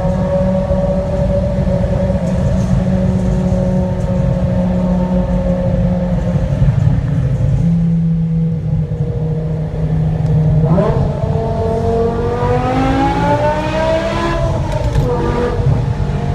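BMW M5 E60's 5.0-litre V10 heard from the exhaust end, cruising steadily under a heavy road rumble. About ten seconds in, the engine accelerates and its pitch climbs for about four seconds, then falls back near the end.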